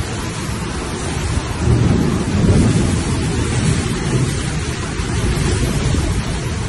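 Storm wind and rain blowing hard, with a heavy low rumble of wind on the microphone that surges louder about two seconds in.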